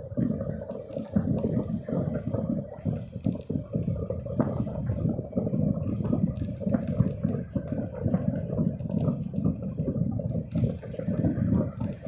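Wind buffeting the microphone: a gusty low rumble that rises and falls unevenly.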